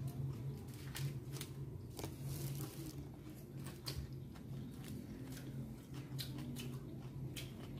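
Close-up eating sounds: biting and chewing a paper-wrapped shawarma, with scattered small clicks and a brief rustle about two seconds in, over a steady low hum.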